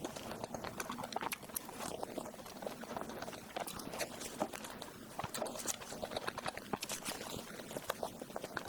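Close-miked eating of dessert: wet chewing and mouth smacking with a dense run of small sticky clicks and crackles.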